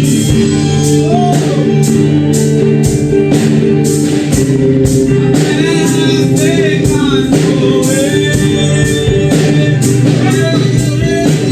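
Worship band playing a song with a singer: sustained chords, guitar and a steady beat.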